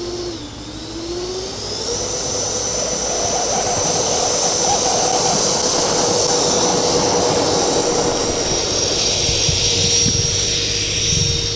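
Twin 70 mm 12-blade electric ducted fans of an RC airliner model spooling up in a rising whine over the first couple of seconds. They then hold a steady full-throttle whine through the takeoff run on grass and the lift-off.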